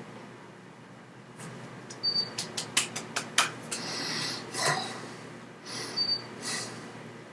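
A person breathing close to the microphone in a small room, with a quick run of sharp clicks a couple of seconds in.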